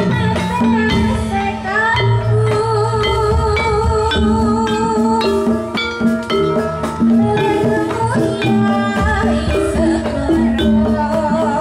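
Traditional Javanese dance music playing loudly: a wavering melody over a steady beat of drums and percussion.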